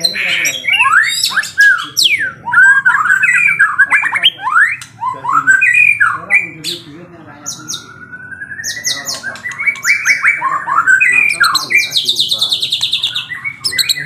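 Songbirds singing: a rapid run of whistled notes that glide up and down, a slower rising whistle in the middle, and a fast high trill near the end.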